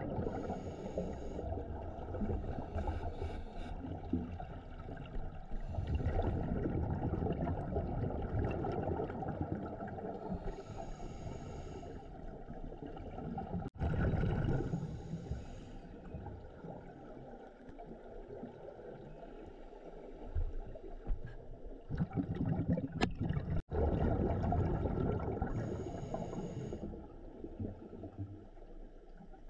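Scuba regulator breathing heard underwater: every few seconds a hissing burst of exhaled bubbles, with a low bubbling rumble in between.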